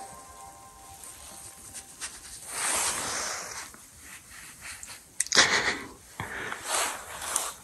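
A person breathing: a long exhale about three seconds in, then a loud, sharp sniff about five seconds in, followed by two shorter breaths near the end.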